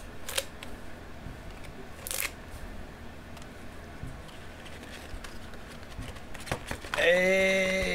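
A rolled paper poster being handled and opened: quiet paper rustling with a few sharp clicks. About seven seconds in, a man's voice gives a long, drawn-out 'ooh' that falls in pitch as it ends.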